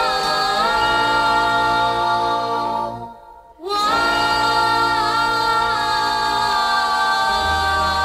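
1960 vocal-group record: several voices sing close harmony in long held chords over a low bass note, breaking off for about half a second around three seconds in before the chord comes back in.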